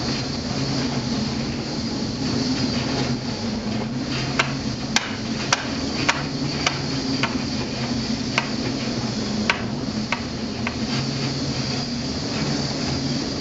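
Steady drone of a ship's engine heard inside the wheelhouse of a fishing vessel in heavy seas, with a constant low hum. Sharp, irregular knocks and clicks come through on top of it, about ten of them.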